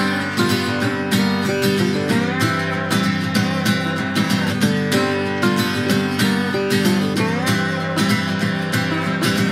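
Two acoustic guitars playing an instrumental folk tune together, strummed in a steady rhythm.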